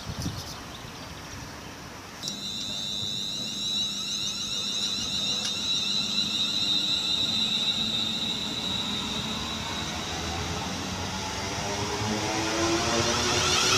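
Electric multiple-unit train moving along the platform. A steady high-pitched whine starts suddenly about two seconds in, and near the end several rising whining tones from the train grow louder.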